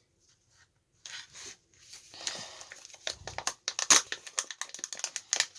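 Kinder Joy packaging being torn open and crinkled by hand, starting about a second in. Sharp clicks and rustles come thickest near the end.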